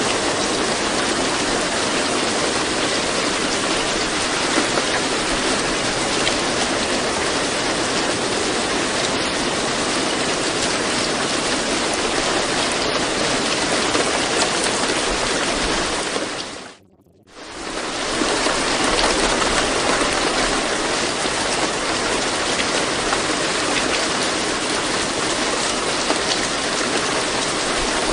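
Steady, even rain sound. It dips out almost to silence for about half a second about two-thirds of the way through, then fades back in.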